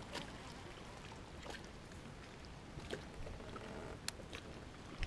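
Faint water lapping against a boat hull on a calm lake, with a few small, sharp clicks scattered through it.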